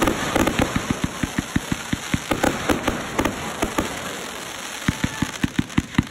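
Consumer fireworks bursting overhead: a rapid string of sharp pops and crackles, several a second, that thins out for a moment about four seconds in and then picks up again.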